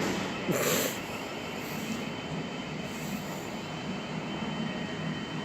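Electric train at the station platform, running with a steady whine and rush of noise. A short, loud hiss comes about half a second in.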